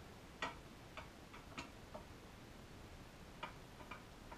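Faint, irregular clicks and taps of a screwdriver working M3 bolts as they are loosened on an aluminium extrusion and steel plate.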